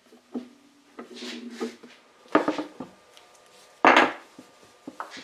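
Objects being handled and set down on a wooden workbench: a scattering of knocks, the loudest about four seconds in, with a short squeaky scrape about a second in.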